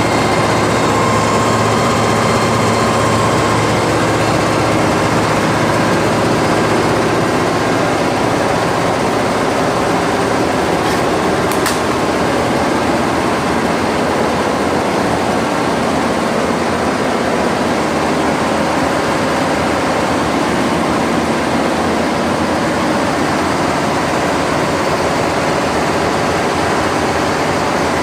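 High-speed embroidery machine running, a loud, steady mechanical noise.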